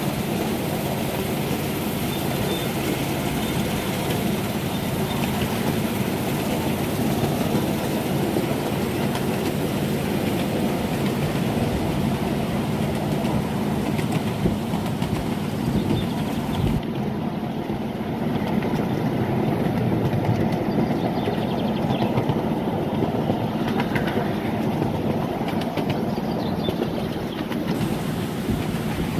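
Miniature railway train running along the track, heard from a carriage at the back: a steady hum from the small locomotive and the rumble of wheels on rail, with occasional clicks.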